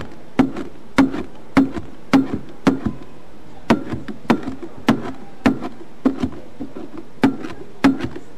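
Chef's knife chopping spinach on a cutting board: steady knocks of the blade hitting the board, about two a second, with a couple of brief pauses.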